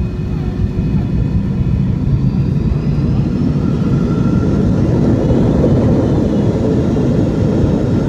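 MD-80 jet airliner rolling out on the runway after landing, heard inside the cabin. The tail-mounted Pratt & Whitney JT8D engines and the wheels make a loud steady rumble that swells a little from about three seconds in.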